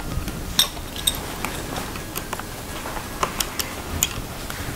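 Sharp plastic clicks and taps, about half a dozen spread unevenly, as a plastic access cover is pressed and snapped into place on the underside of a laptop.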